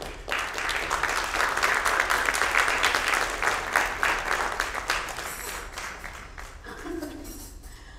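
Audience applauding: many hands clapping, building quickly at the start, then thinning and dying away over the last few seconds.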